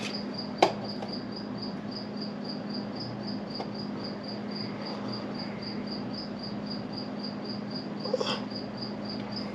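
Steady low hum with a high, even chirp repeating about three times a second, and one sharp click about half a second in.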